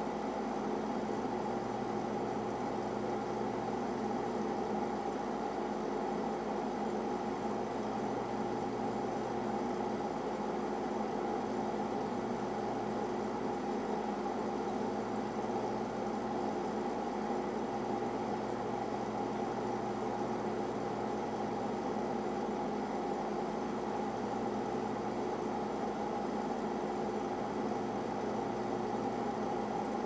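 Boiler room ambience: a LYNX boiler and its equipment running with a steady mechanical hum of several fixed tones, over a low drone that fades out briefly every few seconds.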